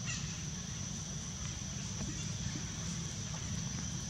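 Steady high-pitched insect chorus, like crickets or cicadas, over a low steady rumble, with a few faint ticks.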